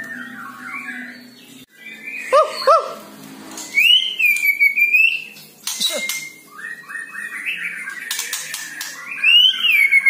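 White-rumped shama singing, with varied whistled phrases and chatter. A pair of short, low whistles comes about two and a half seconds in, and a long whistle rises and falls about four seconds in.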